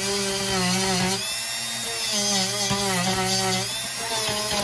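Dremel rotary tool whining as a worn wire brush wheel scuffs the rail of O gauge tubular track, roughing the surface so solder will adhere. The pitch wavers and dips as the brush bears on the rail, and it shifts briefly about a second in and again near the end.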